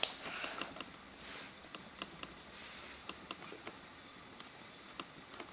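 Lenovo IdeaPad Y700 laptop touchpad being tried out: faint, irregularly spaced clicks with a few soft swishes of a finger sliding across the pad.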